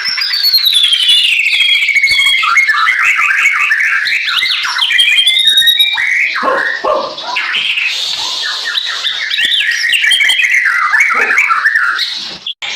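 White-rumped shama singing loudly and continuously. It opens with a long falling whistle, then runs on through varied clear whistles, quick trills and rising and falling glides. The song is full and clear, the voice of a bird recovered from hoarseness.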